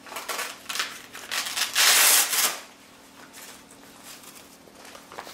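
Hook-and-loop (Velcro) fastening of a blood pressure cuff ripping open as the cuff is taken off the arm. Short crackly rips come first, then one loud tearing rip about two seconds in, followed by faint rustling of the cuff fabric.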